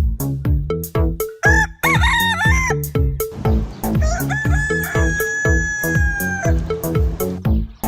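Rooster crowing: a short, wavering call about a second and a half in, then one long drawn-out crow from about four seconds in, over upbeat children's music with a steady beat.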